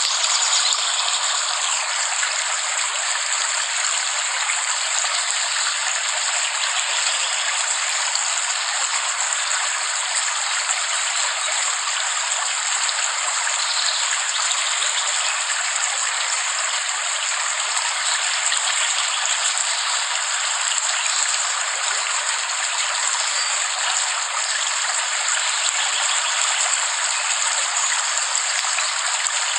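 Rain falling steadily: an even, unbroken hiss with no low rumble and no single drops or thunder standing out.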